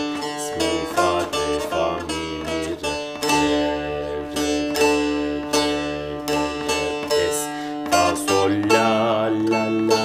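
Long-necked bağlama (uzun sap) picked with a plectrum in quick down-and-up strokes, playing a türkü melody in an uneven meter over a steady ringing drone from its open strings.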